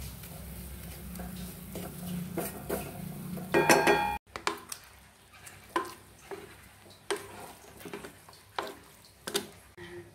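A spatula stirring and scraping spice paste frying in oil in a black iron pan, over a low steady hum, building to a loud metallic clatter with a brief ring just before 4 s. After a sudden cut, a spatula scrapes and knocks against an aluminium pot of beef curry in about five separate strokes.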